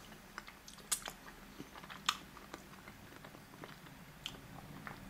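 A person chewing a mouthful of ravioli, faint, with a few short sharp clicks and smacks scattered through it.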